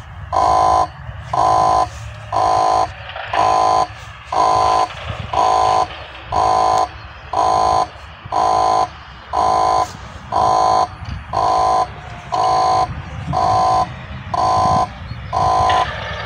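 Level-crossing warning signal sounding its repeating electronic tone, about one note every 0.8 s, as the crossing closes for an approaching train. Near the end a steady higher whine joins in as the barrier booms start to lower.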